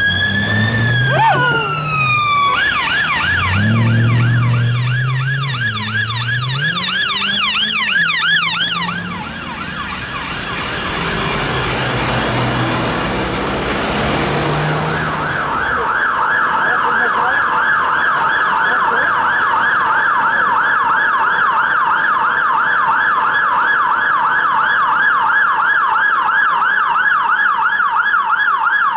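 Police car siren sounding a slow wail that switches to a fast yelp after about two seconds, with engine and traffic rumble, then growing fainter. From about halfway, a Mercedes-Benz Econic fire engine's siren sounds a steady fast yelp.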